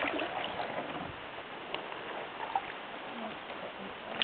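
Canoe paddle strokes in still water: the blade swishing and dripping among lily pads, with a sharp knock near the end.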